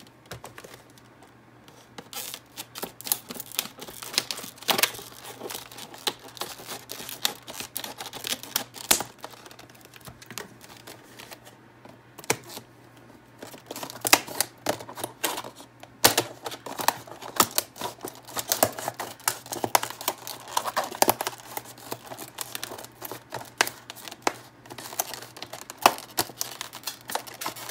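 Scissors snipping through a stiff plastic clamshell blister pack, making repeated sharp snips and crackling of the plastic. The snips are scattered at first and come quickly one after another in the second half.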